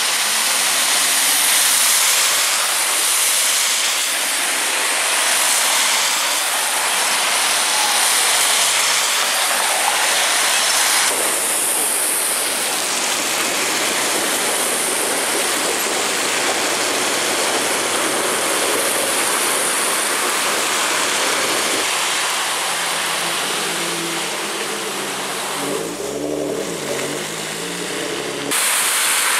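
Steady hiss of rain and car tyres on wet, flooded pavement as vehicles drive by, with engines running under it. The sound changes abruptly about 11 seconds in and again near the end.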